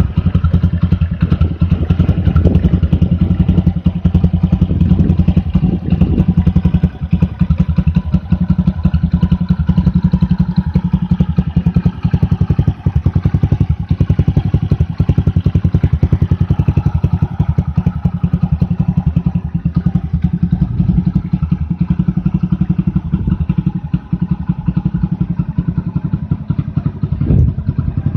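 Honda Super Cub 90's small single-cylinder four-stroke engine running steadily through a Moriwaki titanium Monster aftermarket muffler, a rapid, even exhaust pulse with a deep low end.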